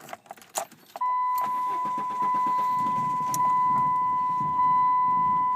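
Keys rattle in the ignition, then about a second in the 2000 Saturn SL2's 1.9-litre four-cylinder starts and runs rough and uneven, with a steady high warning tone sounding over it. It barely keeps running, a stalling fault that a shop put down to a bad fuel pump, which the owner doubts.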